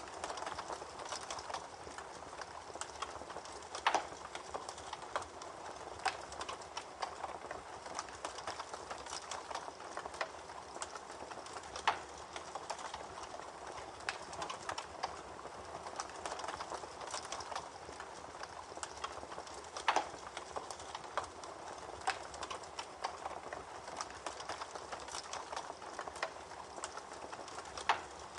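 Campfire crackling with dense small snaps and a sharper pop about every eight seconds, over the steady rush of a babbling creek.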